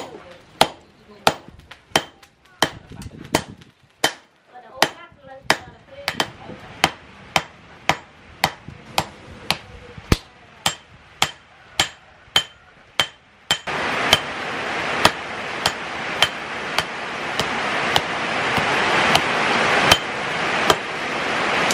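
Hand hammer striking a red-hot machete blade on a steel post anvil: sharp metallic blows in a steady rhythm, about three every two seconds. About two-thirds of the way through, a steady rushing noise comes in under the blows.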